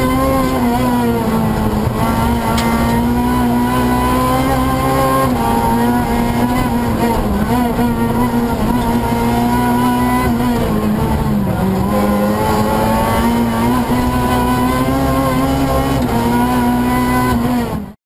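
Renault Clio R3 Maxi rally car's 2.0-litre four-cylinder engine heard from inside the cabin, running hard at high revs. Its pitch holds mostly steady and dips briefly a few times, and the sound cuts off abruptly at the end.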